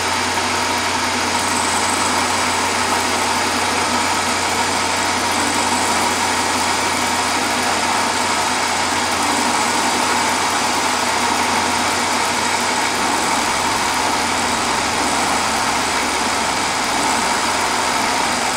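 Milling machine running at 1450 rpm with a small end mill cutting a keyway into a lathe leadscrew: a steady motor hum under the continuous grinding hiss of the cut.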